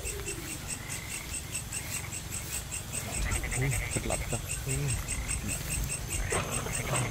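Night chorus at a pond: insects chirping in an even, rapid pulse throughout, with frogs croaking in a few short calls around the middle.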